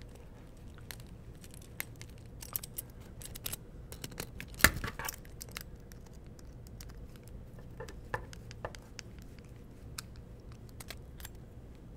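Scattered small clicks and scrapes of a hand screwdriver turning the bolts that fasten metal bed clips to a clear 3D-printer bed plate, with one sharper click a little under five seconds in.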